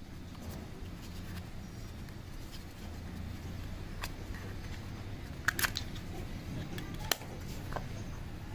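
A few sharp clicks and taps from a plastic earbud charging case and its packaging being handled, the loudest a quick pair of clicks about halfway through, over a low steady hum.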